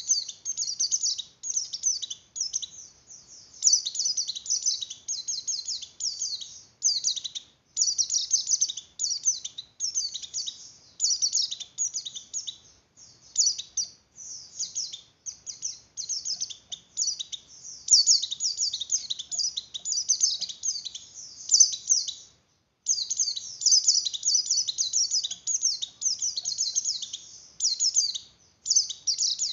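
White-eye (pleci) giving rapid, high twittering song in quick bursts with short gaps: the excited, quivering breeding-condition call of a female white-eye, the kind used to stir up other white-eyes.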